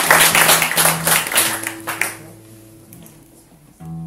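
Clapping that fades out over the first two seconds while low notes from the double bass and acoustic guitar ring on, then a fresh low string note plucked near the end.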